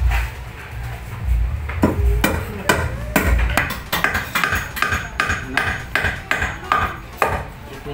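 Hammer striking the square base of a wooden baluster, a rapid run of sharp blows beginning about two seconds in, roughly three a second, each with a short ring.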